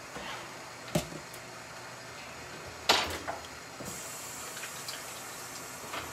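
Kitchen tap running into a sink while dishes are washed, with two sharp knocks of dishes, the louder one about three seconds in. The water's hiss grows brighter just before the four-second mark.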